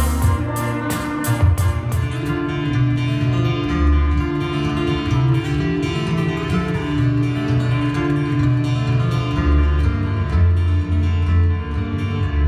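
Live instrumental music on an electric-acoustic guitar: plucked notes and low bass tones ringing over one another. A run of sharp, evenly spaced percussive hits stops about two seconds in.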